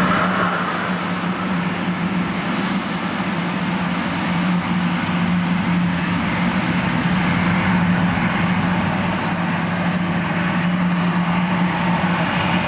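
Boeing 777 jet engines running steadily as the airliner moves along the runway: an even rush of engine noise with a steady low tone under it.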